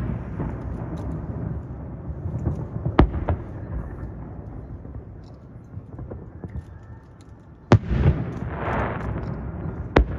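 Fireworks shells bursting in the air: three sharp bangs, about three seconds in, near eight seconds and at the very end, each followed by a rolling low rumble. A hissing crackle follows the second bang.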